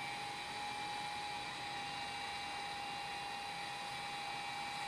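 Steady electric whir of the Puhui T-870A infrared rework station's cooling fan, with a steady mid-pitched whine running through it.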